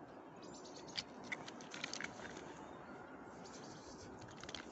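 Faint, irregular crunching and scratching of a spaniel's paws on snowy tree bark and snow as she gets down from the trunk.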